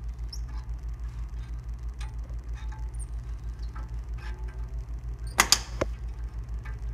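Hand tools working a loosened broken lug bolt out of a wheel hub with a bolt extractor and wrench: light clicks and scrapes, then a sharp double clatter about five and a half seconds in. A steady low pulsing hum runs underneath.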